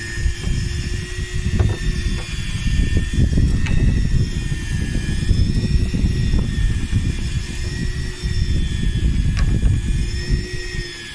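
Boat engine running steadily, with wind buffeting the microphone.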